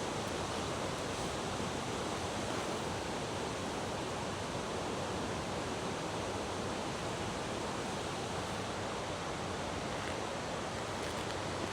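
Steady, even rush of running water from a river's cascades.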